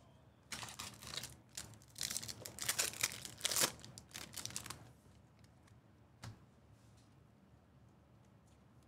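Trading card pack wrapper being torn open and crinkled in a run of short crackling bursts over the first five seconds, followed by a single soft knock a little after the middle.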